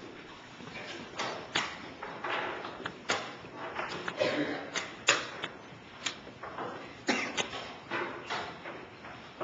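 Plastic chess pieces being set down on a board and a chess clock being pressed in the quick back-and-forth of blitz play: a run of short, irregular knocks and taps, about one or two a second.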